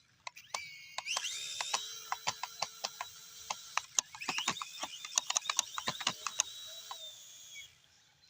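Small drone's motors whining, rising in pitch about a second in, then holding steady before cutting off near the end, with rapid irregular clicking and rattling throughout.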